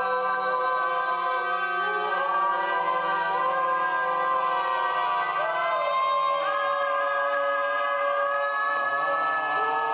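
Choir-like vocal drone from an electroacoustic sound installation: many sustained voice-like tones held together at a steady level, some of them sliding slowly up or down in pitch.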